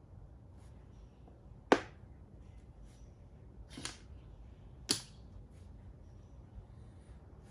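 Makruk (Thai chess) pieces set down and lifted on a plastic board: three sharp clicks, the first about a second and a half in and the loudest, then two lighter ones a second apart.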